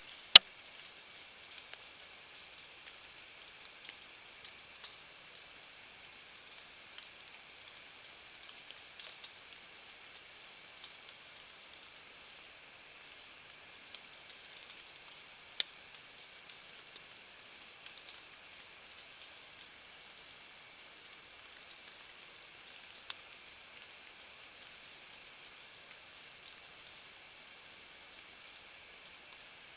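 Night chorus of crickets, a steady high-pitched trilling without a break. A sharp click comes just after the start and a fainter one about halfway through.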